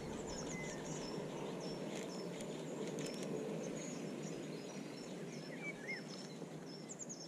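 Small birds chirping with many short, repeated high notes, and now and then a lower chirp, over a steady low rush of riverside ambience.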